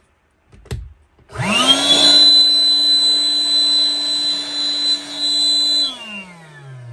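Parkside PKA 20-LI A1 cordless 20 V pump running in its air-blowing (inflating) mode. A click of the switch, then the fan motor spins up within a fraction of a second and runs steadily with a whine for about four and a half seconds. It is then switched off and winds down with a falling pitch.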